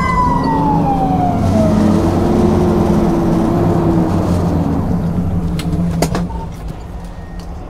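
Fire engine siren winding down in one falling tone over the first couple of seconds, heard from inside the cab over the truck's low engine rumble. A few sharp clicks come about six seconds in, and the rumble then drops in level.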